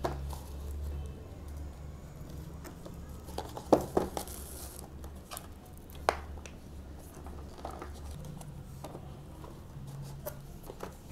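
Plastic wrapping crinkling and tearing as it is pulled off a small cardboard box, with scattered crackles and a few sharper clicks of the box being handled, over a low steady hum.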